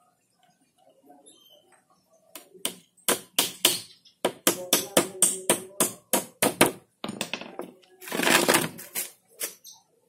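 A quick run of sharp knocks, about three a second, then about a second of rough scraping as the wooden slatted cage-floor frame, covered in plastic mesh, is turned over on the concrete floor.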